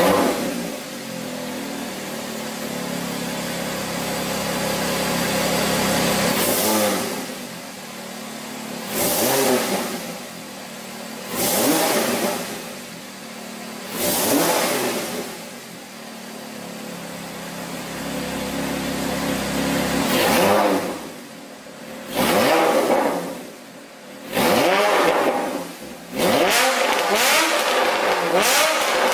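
Porsche 991 Carrera S flat-six through a Fi Exhaust valved cat-back with quad tips, first running steadily at idle, then revved in about eight sharp throttle blips, each rising and falling in pitch. The blips come close together near the end, with the exhaust valves open.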